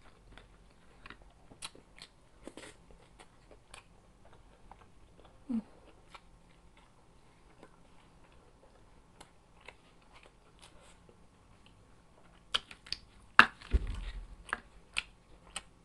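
A person eating close to the microphone: soft chewing and biting clicks, with a brief low hum about five and a half seconds in. About 13 seconds in come a cluster of louder crunches and a low thump.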